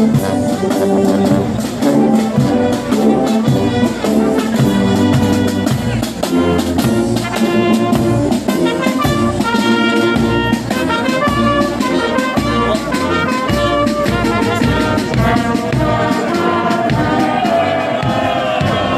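Marching brass band playing a tune, trumpets and trombones carrying the melody in short held notes over a steady beat.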